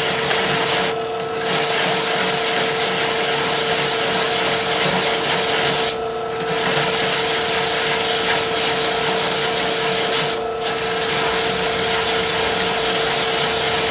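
Drill press running a hole saw through steel plate: a steady motor hum under the rasping, grinding cut of the saw teeth, with chips being thrown out of the kerf. The cutting noise thins briefly three times, about a second in, around six seconds and near ten and a half seconds.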